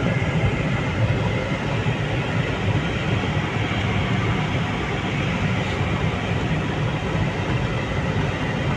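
Steady engine and road rumble inside the cabin of a utility vehicle driving slowly over a rough yard road.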